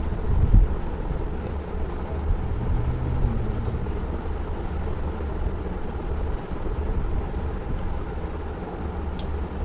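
Steady low rumble of background noise, with a soft knock about half a second in and a faint click near the end.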